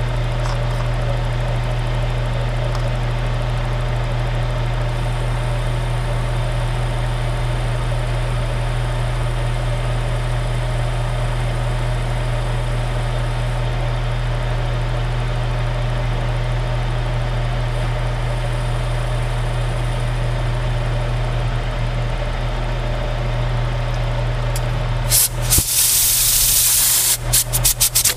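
Metal lathe running steadily with a low motor hum as it turns a stack of thin metal spacers. About 25 seconds in come several short, loud blasts of a compressed-air blow gun.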